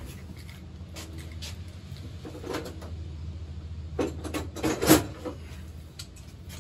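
Light clicks and clatter of hand tools being handled, loudest in a cluster about four to five seconds in, over a steady low hum.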